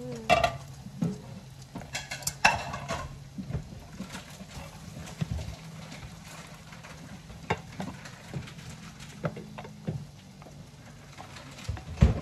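Breaded pork cutlets frying in a pan of oil, a low sizzle, with scattered clicks and clinks of metal tongs against the pan.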